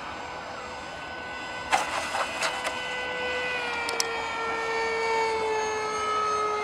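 Electric motor and propeller of a foam RC glider whining steadily, its pitch slowly sinking. A short cluster of knocks comes about two seconds in, and two sharp clicks about four seconds in.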